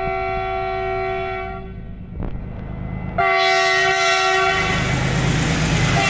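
Diesel locomotive horn sounding two long blasts as a freight train approaches. A short click comes between the blasts. The second blast is louder and joined by the growing rumble of the engine and wheels as the train nears.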